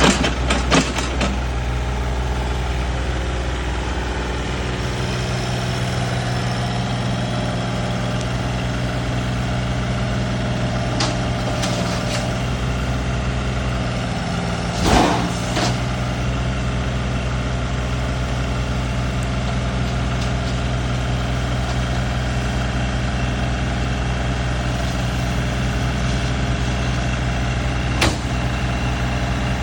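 Excavator's diesel engine running steadily, with a few short sharp clanks: a cluster at the start, some near the middle and one near the end.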